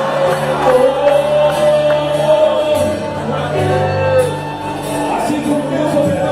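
Live gospel worship band playing with singing voices, sustained held chords over a steady bass.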